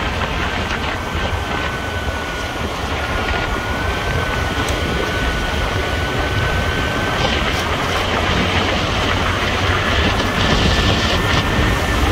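A vehicle in motion: a steady low rumble and road noise, with a thin high whine that drops out for a couple of seconds after about seven seconds and then returns.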